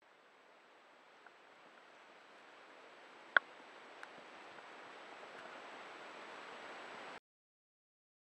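Faint, steady hiss of wind and water on a lake, fading in slowly and growing louder, with one sharp click near the middle and a few fainter ticks. It cuts off abruptly near the end.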